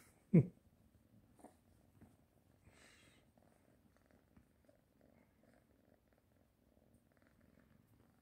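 Kitten purring faintly while it wrestles a hand, with one short, loud sound falling in pitch about half a second in.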